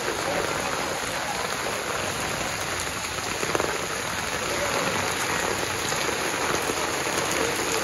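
Heavy monsoon rain pouring steadily onto a flooded street and pavement.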